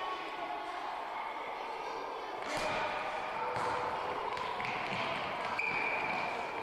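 Football match play: a ball kicked and bouncing in several sharp thuds about a second apart from midway on, under players' and coaches' indistinct shouting.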